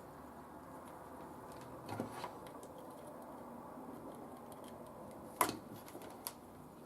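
A few light clicks and knocks of handling over a steady low room hum, the sharpest about five and a half seconds in.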